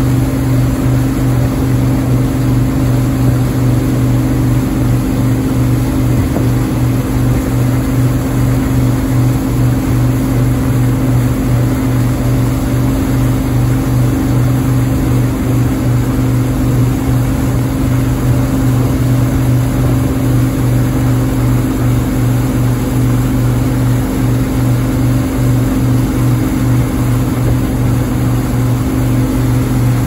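Wake-surf boat's engine running steadily at surfing speed, a constant low drone over the rushing water of the wake.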